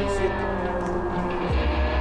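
Background music with sustained notes; a deep bass note comes in about one and a half seconds in.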